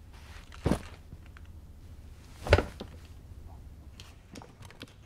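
Two sudden thuds, one under a second in and a louder, sharper one about two seconds later, over a faint steady low room hum.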